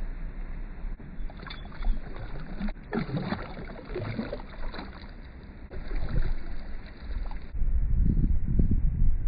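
Wind rumbling on the microphone in uneven gusts, strongest near the end.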